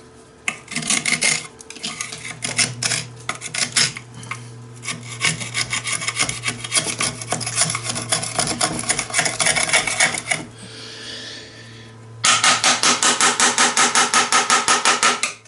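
Rapid back-and-forth rasping strokes of a hand tool scraping a hard surface, uneven for about ten seconds. After a short lull comes a fast, even run of about seven strokes a second near the end.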